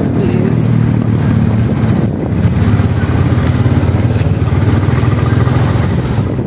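Motorcycle engine running steadily while riding along, heard from the passenger seat, with road noise.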